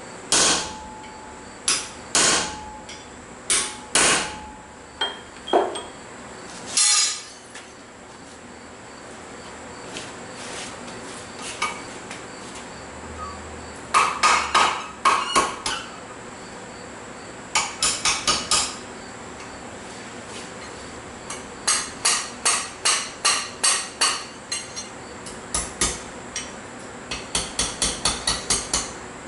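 Blacksmith's hammer striking steel on an anvil while forging a bottle opener hoop. A handful of single ringing blows comes in the first seven seconds, then a pause, then bursts of quick blows, several a second, which grow longer towards the end.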